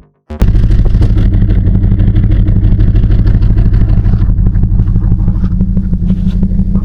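V8 car engine idling steadily with an even, lumpy pulse. It cuts in abruptly about half a second in.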